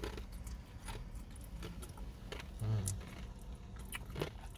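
Quiet eating sounds: small mouth clicks and smacks from someone chewing a sauced hot chicken wing. A short low vocal murmur comes about halfway through.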